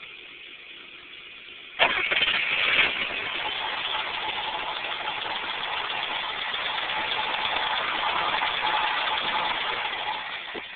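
The starter of a BMW E12 530i's straight-six cranks the engine for about nine seconds without it catching. It comes in suddenly and loudest, then runs steadily and dies away near the end. This is a no-start, with fuel pressure falling from 45 psi to zero within a few seconds even with the pressure regulator's return blocked.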